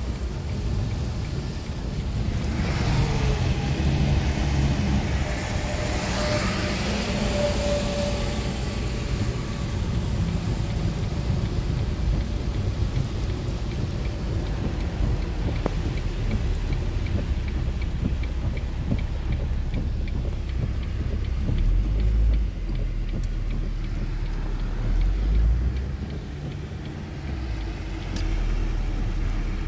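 Car driving through heavy rain, heard from inside the cabin of a 1991 Oldsmobile Cutlass Supreme convertible: a steady hiss of rain and tyre spray over a low road rumble. It gets briefly hissier in the first few seconds, with two louder low thumps in the second half.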